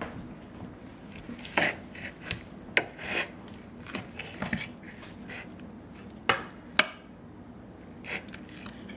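Knife and fork clicking and scraping against a plate while cutting into a grilled bone-in ribeye steak: irregular sharp clinks, the loudest a little under three seconds in and again near seven seconds.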